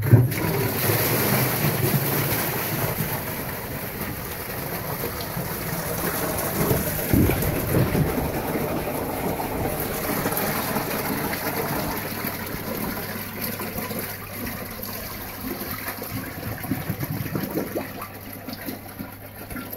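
Water gushing and splashing into a pond filter chamber as the pond pump is started on a test run; the rush starts suddenly and eases off gradually.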